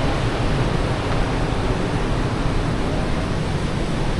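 Steady roar of the Iguazú Falls, heavy water crashing down in a continuous, even rush with a deep low rumble.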